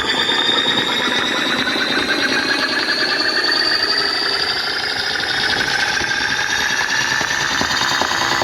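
Electronic synthesizer-like buzzing sound, several tones gliding slowly upward in pitch with a fast pulsing texture.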